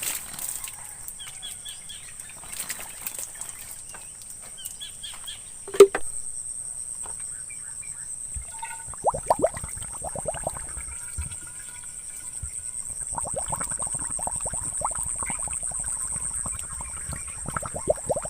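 Steady, high-pitched insect drone with scattered bird chirps. There is a sharp knock about six seconds in, and stretches of rapid rustling from about nine seconds on.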